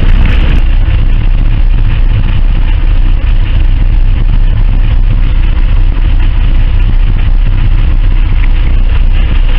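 Boat engine idling, a loud steady low rumble.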